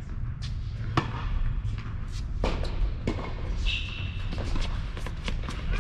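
Tennis balls struck by racquets during a doubles point on an indoor hard court: a serve, then sharp hits at irregular intervals, the loudest about a second in. A short shoe squeak on the court about two-thirds of the way in, over a steady low hum.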